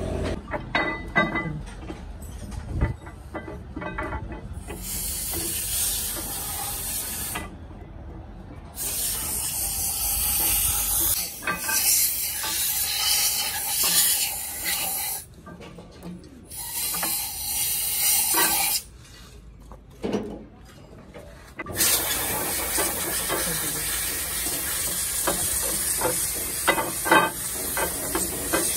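A high-pressure jet hissing in four bursts of a few seconds each, cut off sharply between them, with knocks and clatter in the first few seconds.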